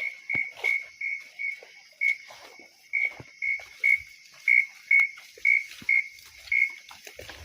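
A bird repeating a short whistled note on one steady pitch, about two notes a second, with a few uneven gaps.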